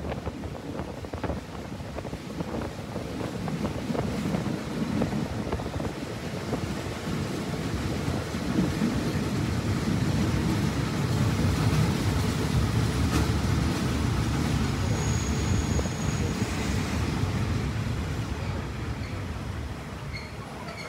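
Passenger train running on the track, heard from on board: a steady low rumble of wheels and carriage that grows louder through the middle and eases off near the end. A brief high squeal comes about 15 seconds in.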